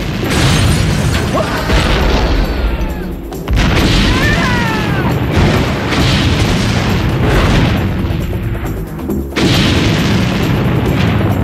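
Film explosion effects: three heavy booms, at the start, about a third of the way in and about three quarters of the way through, each followed by a long, loud rumbling tail, with soundtrack music underneath.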